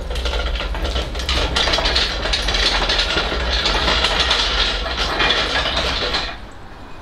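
A machine running with a steady low drone and a fast, dense rattle, stopping fairly abruptly about six seconds in.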